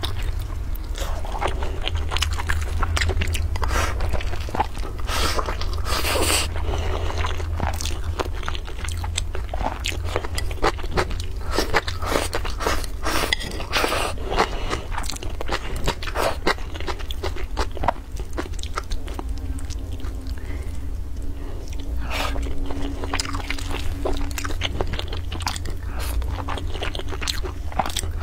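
Close-miked eating: biting and chewing a piece of braised pork with rice and kimchi, a dense run of short clicks and crunches, over a steady low hum.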